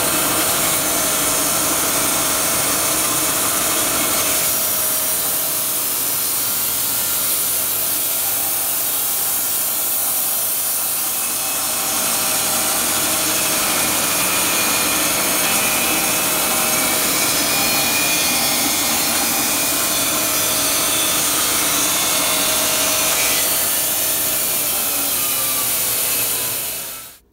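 Wood-Mizer band sawmill running its band blade through a log, a steady loud sawing noise. A faint falling whine comes in over the last few seconds, and then the sound cuts off suddenly.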